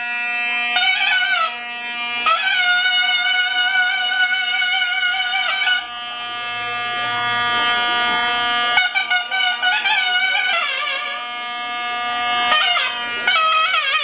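Zurna playing a folk melody of long held, piercing reedy notes broken by quick ornamented runs, over a steady low drone.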